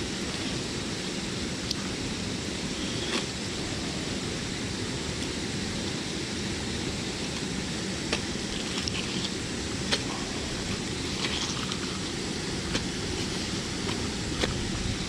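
Gloved hands pulling wet weed and debris off a neodymium fishing magnet, making a few faint clicks and rustles over a steady rushing noise.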